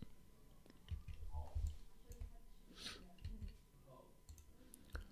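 Faint, scattered computer mouse and keyboard clicks with a few soft low thuds, over quiet room tone.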